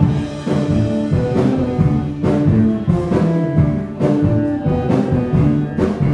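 A live band playing in the next room, heard through the wall: drums beating regularly under held instrument notes.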